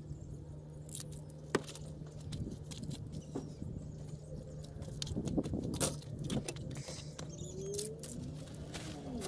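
Scattered light clicks and taps of a mayonnaise jar and a utensil being handled over a plate, busier about halfway through. A faint steady hum underneath stops about two seconds in.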